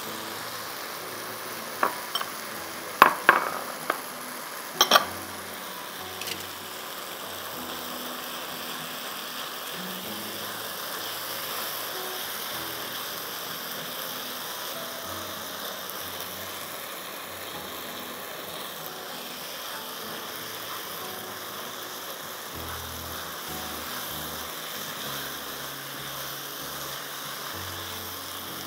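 Minced chicken sizzling as it fries in oil with onions and tomatoes in a wok, with a few sharp knocks against the pan in the first five seconds as it goes in and is stirred with a spatula, then a steady sizzle.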